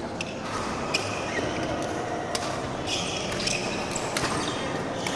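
Badminton rally: sharp racket strikes on the shuttlecock at irregular intervals about a second apart, with brief sneaker squeaks on the court floor.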